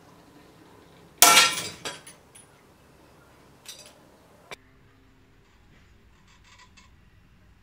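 A 3D-printed PLA test piece, printed lying flat, snaps under tension in a chain-and-crane-scale pull rig with one loud, sharp crack about a second in. The chain and shackles then rattle and clink a few times as the load drops away.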